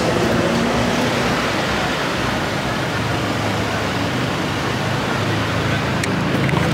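Steady rushing noise of a moving vehicle and road traffic, with a low engine hum underneath.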